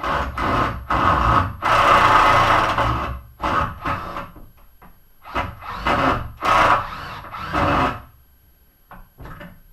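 Rough scraping and rubbing of wood and metal hardware in several irregular bursts, as a stuck piece caught on a spinning screw is worked against plywood by hand. A few light clicks follow near the end.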